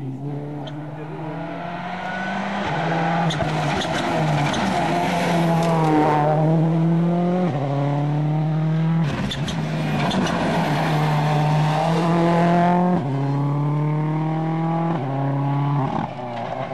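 Ford Focus RS WRC 07 rally car's 2.0-litre turbocharged four-cylinder engine driven hard, its pitch climbing and dropping back in quick steps at each gear change, growing louder over the first few seconds as the car approaches. A few sharp cracks come between shifts.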